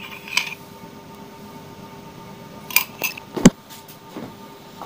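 A metal spoon clinks against a cup and a steel plate while solid ghee is scraped out into flour. A few more clicks follow about three seconds in, then one sharp knock just after.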